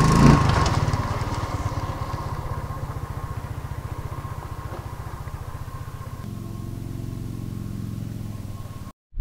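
Small motorcycle engine running as the bike rides away, its sound fading gradually with distance. The sound cuts off suddenly near the end.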